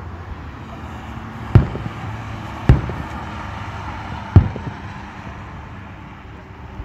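Aerial firework shells bursting: three sharp bangs, the second about a second after the first and the third a little under two seconds later, over steady low background noise.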